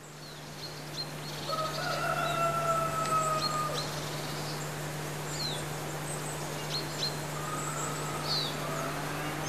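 Birds calling outdoors in short high chirps, with a longer drawn-out call, slightly falling in pitch, from about a second and a half in for some two seconds. A steady low hum runs beneath.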